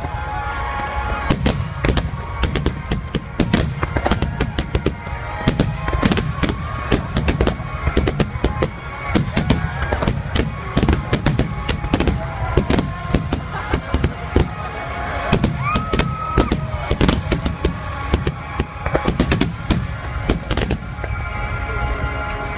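Aerial fireworks shells bursting in a dense, rapid barrage, many sharp reports in quick irregular succession, thinning out near the end, with music playing underneath.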